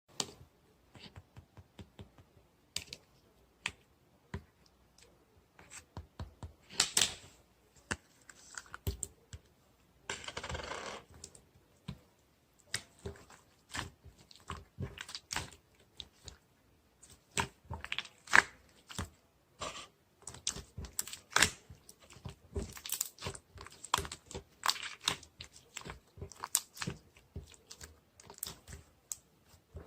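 Small hard objects being handled, giving many irregular sharp clicks and taps, with a brief rustling, tearing noise about ten seconds in.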